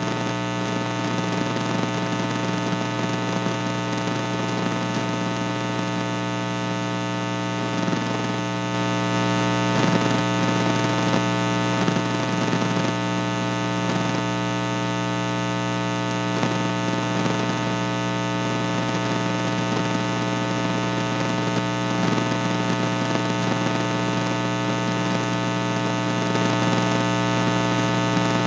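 Loud, steady electrical mains hum: a buzz with many overtones, over a faint hiss, without change.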